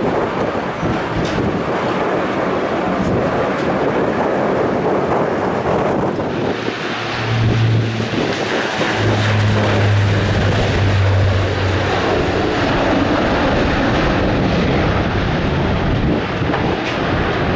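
Jet airliner engines heard from the ground as aircraft fly the approach, a steady roar that changes abruptly about six seconds in, where a second aircraft takes over.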